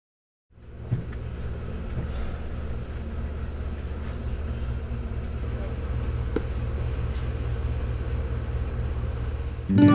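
Steady low room hum with a few faint clicks, starting about half a second in after a moment of silence. Near the end, acoustic guitar music comes in.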